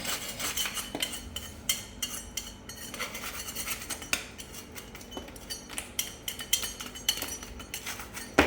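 Hand scraper scraping the skim coat of plaster off a wall in many short, irregular strokes with sharp clicks.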